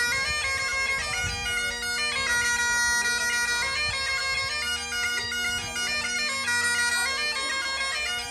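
Bagpipes playing a tune, the chanter's melody stepping quickly from note to note over a steady, unbroken drone.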